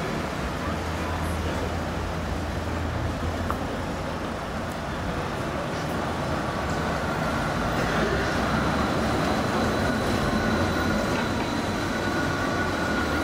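City street traffic with an articulated electric trolleybus approaching. A steady high electric whine joins the low hum of the traffic about halfway through, and the sound grows a little louder as the bus draws near.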